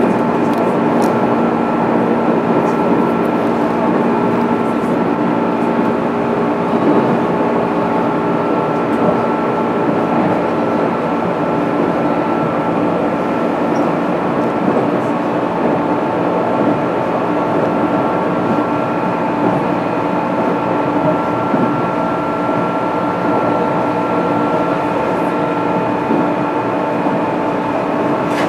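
JR East 205 series electric train heard from inside motor car MoHa 205-612, running at a steady speed between stations. A steady motor and gear whine sits over continuous wheel and track noise.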